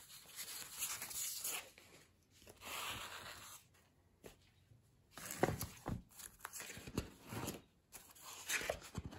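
Sheets of heavy printing paper and sketchbook pages being handled and turned over, rustling in several short spells with some sharp crackles.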